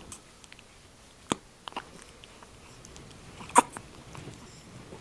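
Newborn baby hiccuping, three days old: a short, sharp hiccup about a second in, a quicker, softer pair just after, and the loudest one a couple of seconds later. The hiccups come from feeding too fast.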